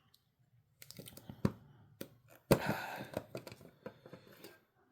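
Handling of a Yu-Gi-Oh mystery cube's packaging: soft rustling, with light taps and clicks, and a louder crinkling rustle about two and a half seconds in.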